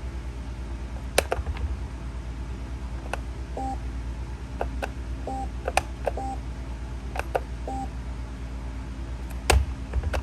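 Kidde P4010ACS smoke alarm's test button clicked again and again, with the alarm answering some presses a moment later with a short, soft two-tone beep, about four beeps in all. A steady low hum runs underneath.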